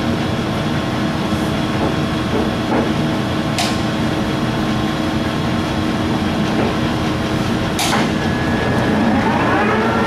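Warner & Swasey 4A turret lathe running under power, its headstock gearing humming steadily, with two sharp clunks as the head levers are shifted. Near the end a rising whine as the spindle speeds up.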